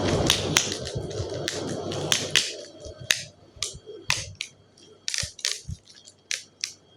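Sticky tape being laid over paper and pressed down: a rasping crackle for about two seconds, then a run of sharp crinkling clicks.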